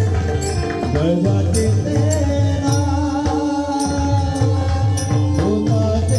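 Marathi devotional bhajan: a male voice sings long, high notes that bend up and down, over sustained accompanying tones, a regular drum beat and repeated ringing hand-cymbal strikes.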